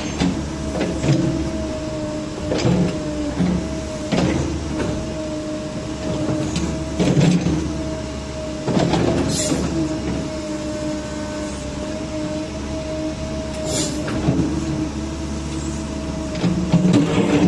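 Caterpillar 306 mini excavator running, its diesel engine and hydraulics giving a steady rumble with a held tone, broken by irregular metallic clanks and knocks every second or few.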